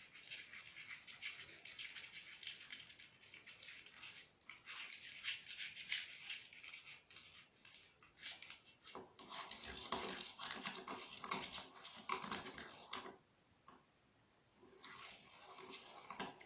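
Water and glitter being stirred in a small plastic container: fast, continuous scraping and tapping of the stirrer against the plastic, stopping for a moment about three-quarters of the way through before starting again.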